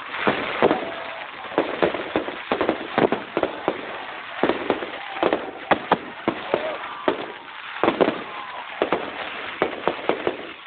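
Aerial fireworks display: shells bursting overhead in an irregular, rapid series of sharp bangs and cracks, several a second.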